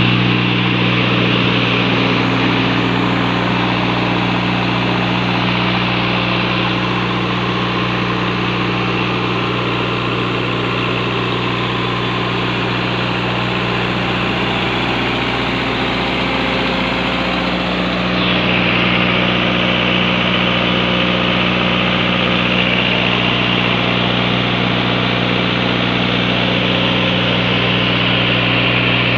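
495 G four-cylinder diesel engine running steadily at a constant speed on a test stand, with no revving.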